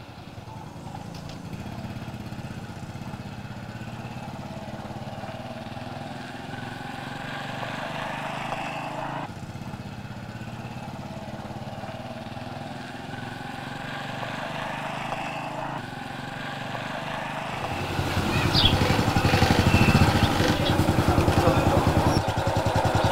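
Small step-through motorcycle engine running as it is ridden, its pitch rising and falling with the throttle, and louder in the last few seconds as it pulls up close.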